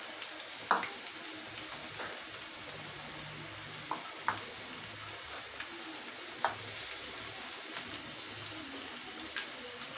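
Chicken pakoras deep-frying in hot oil in a pan: a steady sizzling hiss broken by scattered crackling pops.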